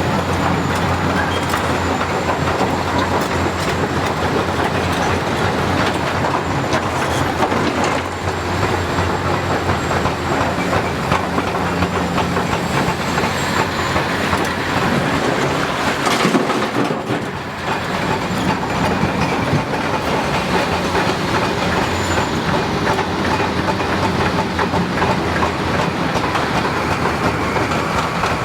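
Hitachi 330 hydraulic excavator's diesel engine running steadily under load, with continuous metallic clatter and grinding from the machine at work in rock. The sound dips briefly about two-thirds of the way through.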